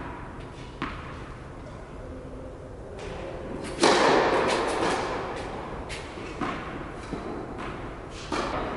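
Tennis ball bounced on an indoor hard court, then just before four seconds in a loud crack of the racket striking the ball on the serve, echoing through the large hall; a few fainter ball hits follow.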